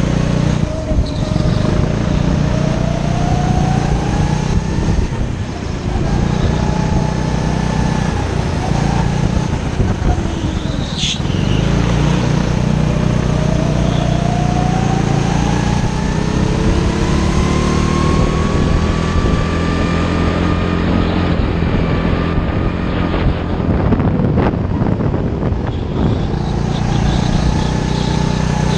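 Go-kart engine heard from the driver's seat, its pitch rising slowly as the kart accelerates through longer stretches and dropping back as it slows for the corners.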